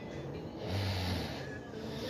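A person's slow, noisy breathing close to the microphone: one long breath with a low buzz about a second in.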